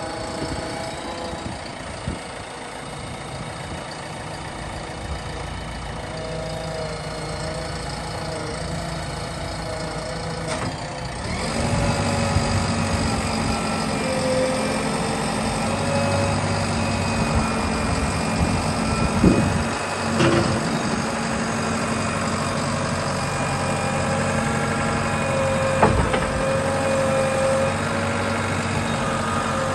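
JCB 3DX backhoe loader's diesel engine running steadily, growing louder and fuller about eleven seconds in as it is revved up, with a few short clunks later on.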